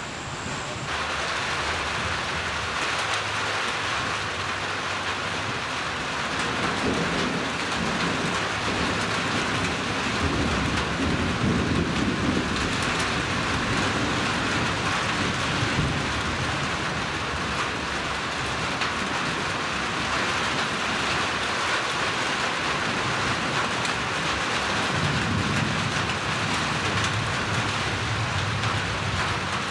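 Thunderstorm: steady rain falling, with low thunder rumbling for several seconds twice, about a quarter of the way in and again near the end.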